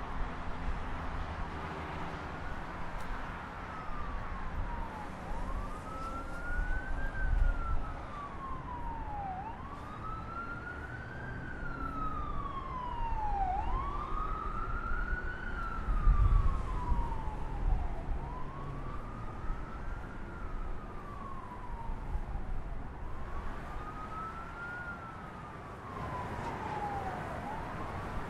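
An emergency vehicle's siren in a slow wail, its pitch rising and falling about every four seconds, over the steady rumble of heavy highway traffic.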